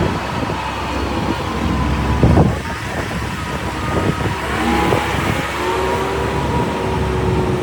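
Motor vehicle running steadily with a low hum and some steady whining tones; a louder rumble swells briefly about two seconds in.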